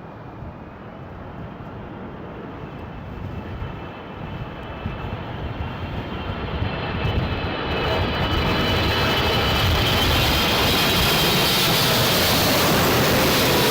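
Airliner on landing approach in a strong crosswind, its engines whining and growing steadily louder as it comes close, then holding loud from about eight seconds in. Wind rumbles on the microphone underneath.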